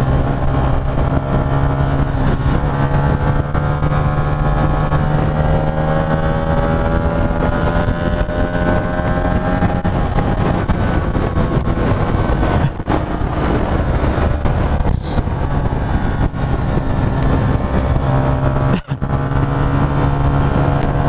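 Hyosung GT125's small V-twin engine running hard at road speed, its pitch climbing slowly for several seconds as it accelerates, under a steady rush of wind and road noise. The sound dips briefly twice in the second half.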